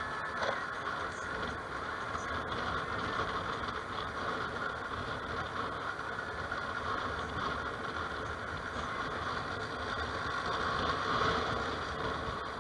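Bumoto Regnum maxi-scooter being ridden through city traffic: a steady mix of engine, wind and road noise, swelling a little about eleven seconds in.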